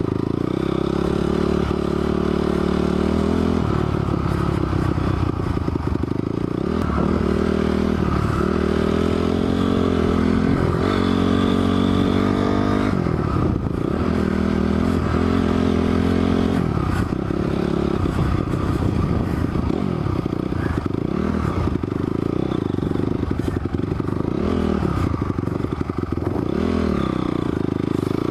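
Honda CRF250R's single-cylinder four-stroke engine under way on a dirt bike, its revs rising and falling again and again every few seconds as the throttle is worked.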